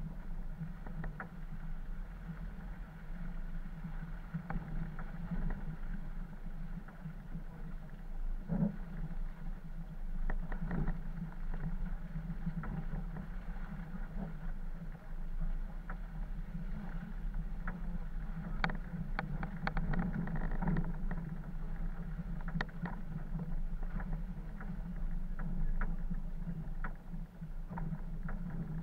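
Off-road 4x4's engine droning steadily at low speed, heard from on board, with scattered knocks and rattles as the vehicle bumps over rutted mud, clustered about two-thirds of the way in.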